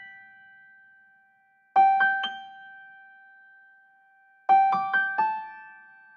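Background music: a keyboard playing short runs of three or four quick notes that are left to ring, a new run starting about every three seconds.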